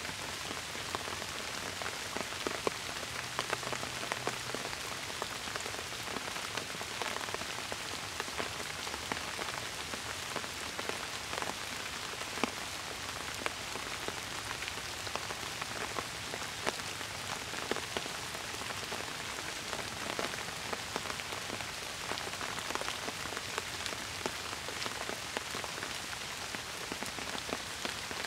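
Steady rain falling, a constant hiss with many individual drops ticking and splashing close by throughout.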